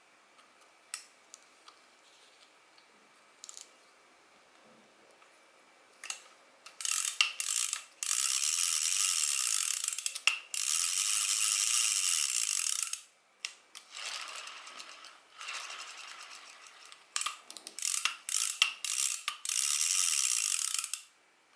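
Daiwa spinning reel's mechanism being turned: long runs of rapid ratcheting clicks and gear whirr in two loud spells, after a few faint single clicks.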